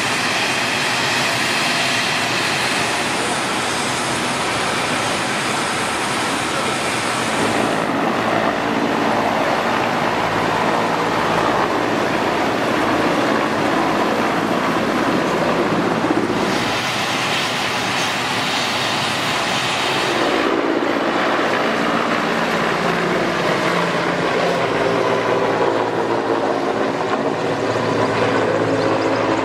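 Mi-8 helicopters' twin turboshaft engines and main rotors running loud and steady, one helicopter close by on the ground and others flying low overhead. The sound changes abruptly a few times along the way.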